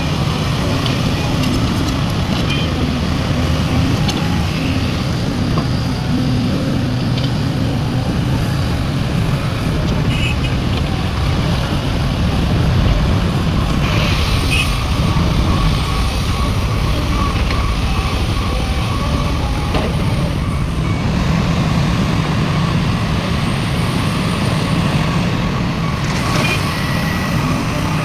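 Heavy diesel engine of a large excavator running steadily under load while digging and loading, with a faint steady whine above it.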